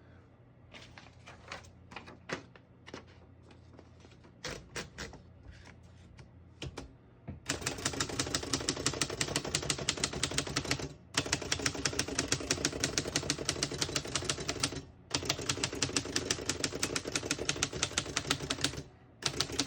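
Typing on a 1939 Royal U portable typewriter: a few scattered light clicks at first, then fast, even key strikes at about seven a second from about seven seconds in, broken by three short pauses.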